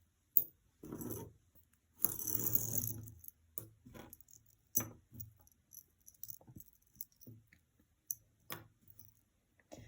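Costume jewelry clinking and jangling as pieces and chains are handled: a sharp click right at the start, a longer jangling stretch about two seconds in, then scattered small clicks.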